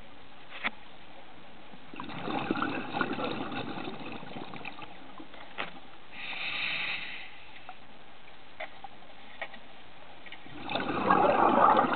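Underwater bubbling from a scuba diver's exhaled breath, in three bursts a few seconds apart, the last the loudest, over a steady hiss, with a few faint sharp clicks between the bursts.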